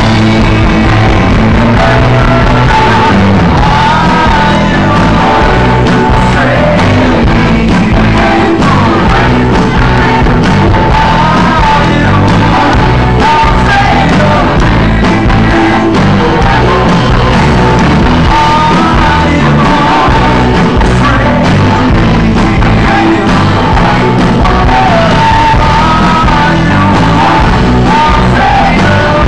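Live rock band playing loud, with electric guitar and sung vocals.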